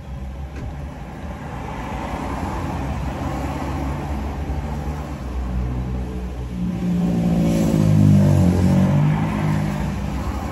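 Motor vehicle sound heard from inside a parked car's cabin: a steady low engine hum, with a louder vehicle passing from about six and a half to nine and a half seconds in, its engine note rising and falling.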